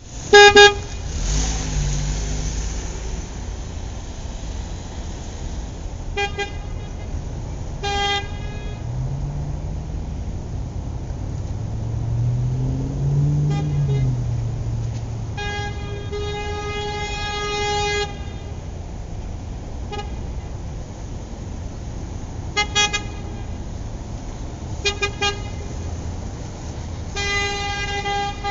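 Ordinary car horn honking impatiently in an irregular pattern: single short toots, quick double and triple taps, and two long blasts of a couple of seconds each. A low rumble continues between the honks.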